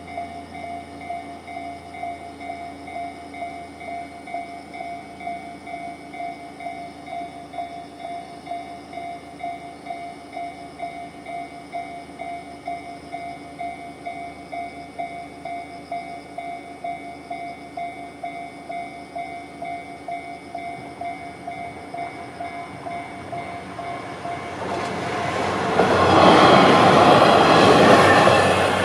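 Japanese railway level-crossing electronic warning bell (JR standard tone) ringing steadily at a little over two strokes a second. Over the last several seconds a JR KiHa 110-series diesel railcar approaches and runs through the crossing, its engine and wheels on the rails growing loud enough near the end to drown the bell.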